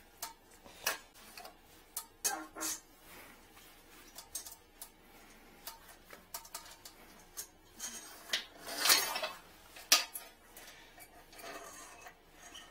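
Scattered light clicks, knocks and clinks of tools being handled during drain-retrieval work at a toilet. A brief rustle comes about eight to nine seconds in, and a sharp click just after.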